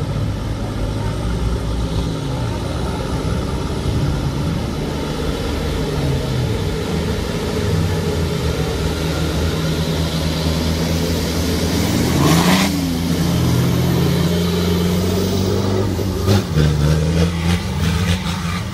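Off-road prototype buggy engines running hard and revving up and down as they ford a shallow river, over a hiss of churned water. One sharp rev about two-thirds of the way through, and a run of sharp clicks near the end.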